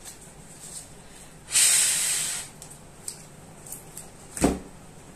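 A hiss lasting about a second, starting about a second and a half in, then a single sharp knock near the end.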